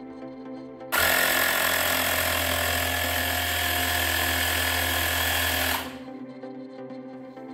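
Ultimate Speed rechargeable portable air compressor switching on about a second in, running with a steady, loud buzz for about five seconds, then cutting off suddenly, over background music.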